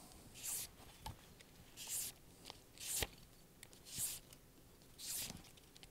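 Sandpaper being drawn by hand over a new saxophone neck cork: a handful of short, faint rasping strokes about a second apart. The cork is being thinned because it is still too tight for the mouthpiece.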